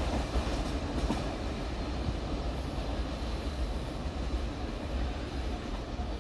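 Freight train rolling past, its wagons giving a steady rumble.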